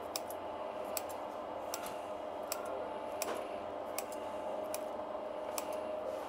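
Household scissors snipping through a roll of bread dough, a short sharp click of the blades about every three-quarters of a second, over a faint steady hum.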